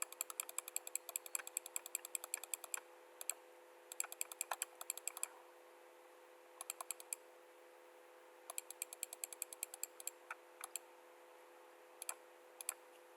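Rapid runs of light clicks from computer input devices, about ten a second, in several bursts separated by pauses, over a faint steady hum.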